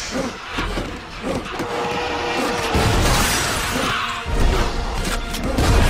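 Action-film soundtrack: dramatic orchestral score mixed with crashing and booming impact effects. A deep rumble swells about three seconds in, and heavier crashes hit from a little after four seconds.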